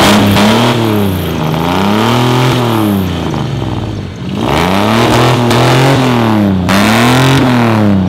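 1978 AMC Pacer's engine revved over and over while parked, its pitch rising and falling in repeated swells. It eases off briefly about four seconds in before revving again.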